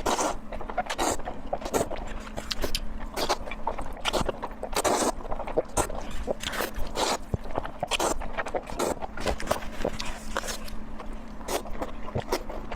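Close-miked eating sounds: irregular chewing, biting and mouth clicks, several a second, over a steady low hum.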